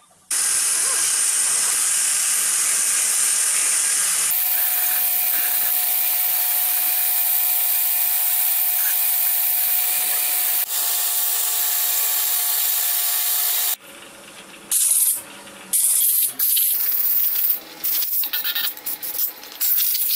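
Pressure washer jet blasting the rusty air compressor pump's cylinder block clean: a loud steady hiss of spray, with a steady tone joining about four seconds in. From about fourteen seconds the spray comes in short bursts, starting and stopping.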